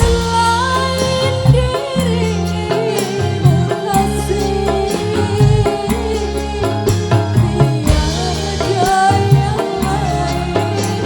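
A live dangdut band playing loudly through a sound system: a deep pulsing bass and hand-drum strokes under a wavering, ornamented melody line.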